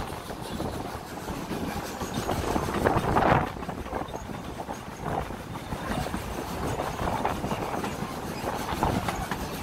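Puffing Billy narrow-gauge train carriage running along the track: a steady rumble and rattle of wheels on the rails, with a louder surge about three seconds in.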